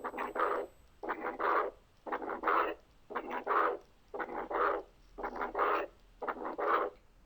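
Recorded heart sounds of pulmonary hypertension, about one beat a second. Each cycle has the first heart sound, a soft, low functional systolic murmur, an accentuated second heart sound, and right after it the early diastolic murmur of pulmonary regurgitation (Graham Steell murmur).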